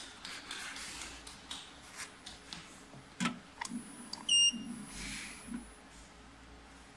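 A short electronic beep from a CYCJET ALT390HP portable inkjet printer about four seconds in, the loudest sound. Around it, a few light knocks and scuffs of a bottle being handled at the printer's slot.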